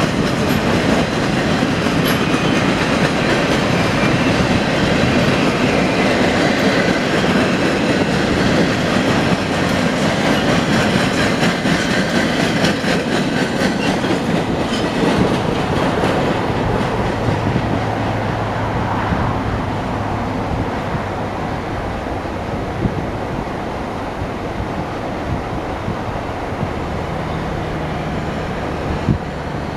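Empty log flatcars of a freight train rolling past, their wheels clacking over the rail joints with a dense rattling rumble. About halfway through, the end of the train goes by and the rolling noise fades away, leaving a low steady engine hum from road traffic passing near the end.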